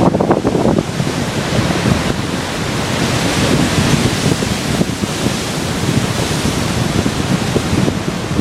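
Ocean surf washing, with wind buffeting the microphone; the hiss of the water swells for a couple of seconds near the middle.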